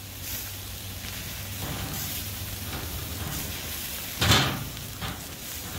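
Sausages, ribs and pork sizzling on a charcoal grill grate as a steady hiss, with one brief loud thump about four seconds in.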